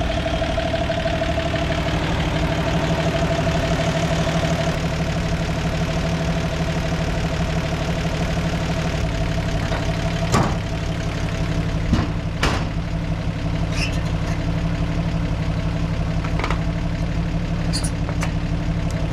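Toyota FJ40 Land Cruiser's inline-six engine idling steadily. About ten seconds in the hood comes down with a knock, followed by a couple of sharper clicks and knocks as it is shut and latched.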